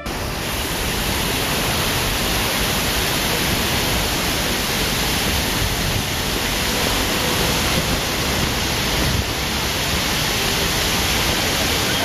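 Steady rush of splashing water from a plaza fountain and a cascading water wall, an even hiss without breaks.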